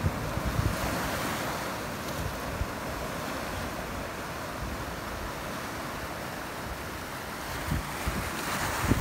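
Small waves washing up on a sandy beach: a steady hiss of surf that swells again near the end, with wind buffeting the microphone at the start and near the end.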